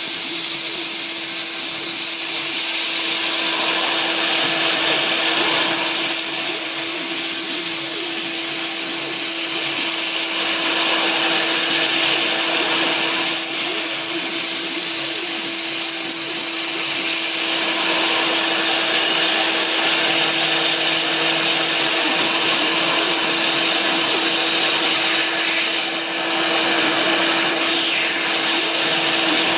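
Sieg SX2 mini mill's spindle running a 6 mm cutter through a hardwood block under CNC control: a steady spindle hum with hissy cutting noise that swells and eases several times as the cut goes on.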